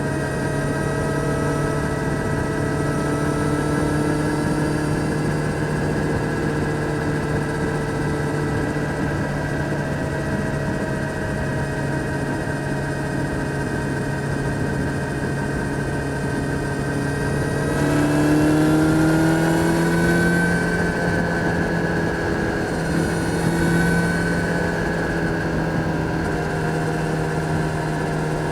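Kawasaki Z900's inline-four engine running steadily. Its pitch rises as it revs up about two-thirds of the way through, then rises briefly again a few seconds later.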